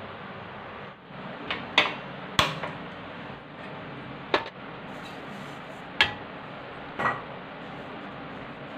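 A metal kadai being handled on a stovetop, with about six sharp knocks and clanks spread over a few seconds and a short ring after some of them, over a steady background hiss.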